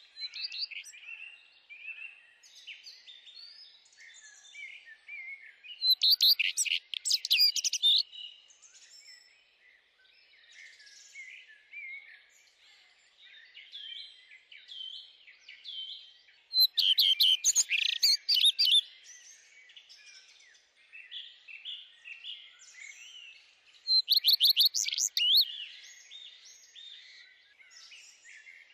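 Birdsong: many small birds chirping, with three louder song phrases of rapid notes, each about two seconds long, at roughly six, seventeen and twenty-four seconds in.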